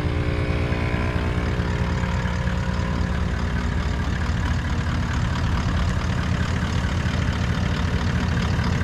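On-board air compressor mounted in a Toyota Land Cruiser 76's front bar running steadily, pumping air down a hose to reinflate the tyres after off-road driving at low pressure. A constant mechanical drone, with a whine on top that fades away over the first few seconds.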